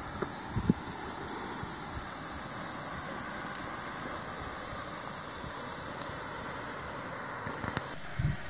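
Insects shrilling in a loud, steady high hiss that thins a little near the end, with a few low wind thumps on the microphone.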